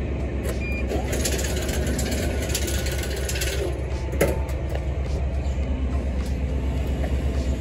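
Steady low mechanical hum, with one sharp knock about four seconds in as the Royal 550 soda vending machine's door is pushed shut.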